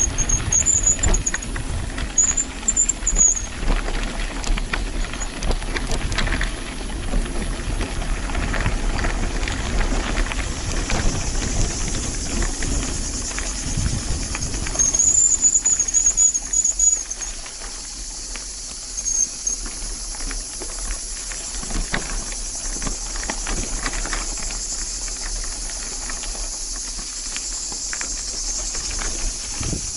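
Low wind rumble with scattered clicks and rattles, and a few short high-pitched squeals: two near the start, and two more about halfway through.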